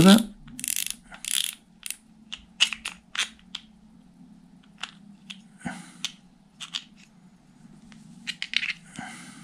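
Drag knob of a Daiwa Laguna LT 1000 spinning reel being unscrewed, its clicker working, giving a run of sharp, irregular clicks that thin out after the first couple of seconds. There are a few small handling clicks as the spool is pulled off near the end.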